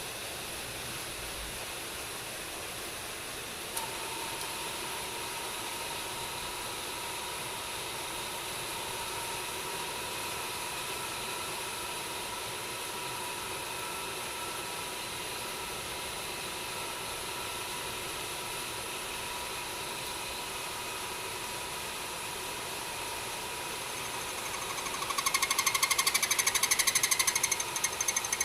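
A small electric motor switches on with a click about four seconds in and runs steadily with a whine. Near the end a loud, fast, even rattle of metal working starts over it.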